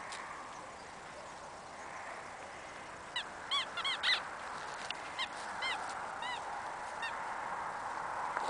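Homemade fabric squeaky toy squeaking as dogs bite and tug at it: a quick run of about five squeaks around three to four seconds in, then a few single squeaks.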